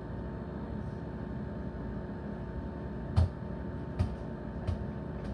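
A steady low hum with three short knocks, the loudest about three seconds in and two lighter ones a second or so apart after it.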